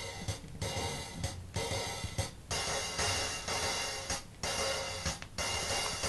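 Percussion music from a stereo demonstration LP played back through Bose 301 Series II speakers: a run of hissing, cymbal-like strokes broken by short gaps.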